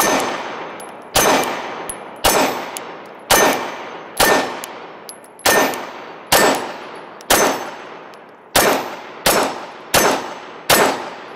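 Gen 3 Glock 17 9mm pistol fired in a steady string of about a dozen shots, roughly one a second and coming a little faster near the end. Each shot trails off in a long echo.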